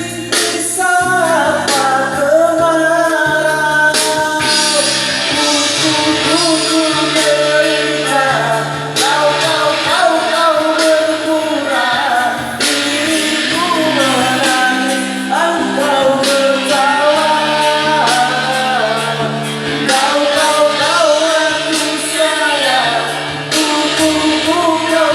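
A song: a voice singing a gliding melody over instrumental accompaniment with held bass notes and percussion.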